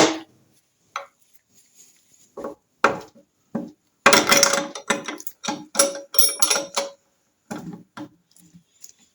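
Steel hand tools clinking against a metal sprocket puller: a few separate sharp clicks, then two bursts of rattling clatter with a brief metallic ring, as a spanner is handled on the puller.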